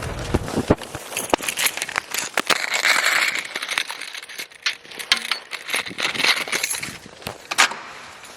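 Irregular clicks and clinks of objects being handled, with a short rustle about three seconds in.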